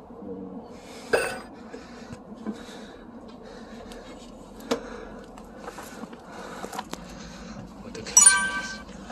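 Sharp plastic clicks and clacks of a KTX-Eum seatback tray table being folded down and handled, over a steady faint background hum. The loudest sound is a single ringing clink near the end.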